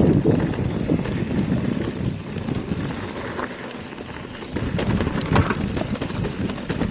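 Mountain bike rolling down a rough dirt trail: tyre noise and the bike rattling over the bumps, with wind on the camera's microphone. It is louder at the start and again about five seconds in, and eases off in the middle.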